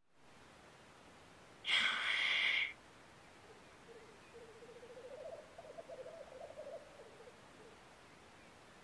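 Displaying male black grouse: a loud wheezy hiss lasting about a second, about two seconds in, then the low, rapidly bubbling rookooing song, rising and falling in pitch, from about three and a half seconds to nearly eight seconds in.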